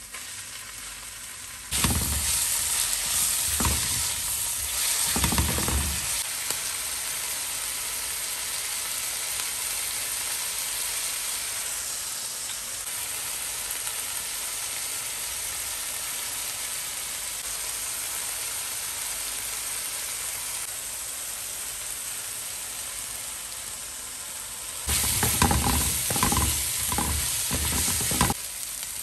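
Chopped tomato hitting hot oil and fried onions in a small nonstick frying pan: the sizzle jumps up about two seconds in and then carries on steadily. A spatula stirs and scrapes the pan in a run of strokes soon after the tomato goes in, and again near the end.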